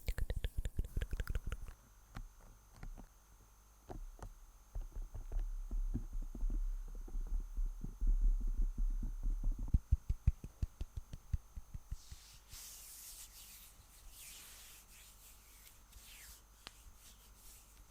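Fingertips tapping and rubbing directly on an ASMR microphone: fast runs of taps with deep, thudding low rumble, heaviest in the middle. About two-thirds of the way through they give way to softer, crisp scratchy crackling.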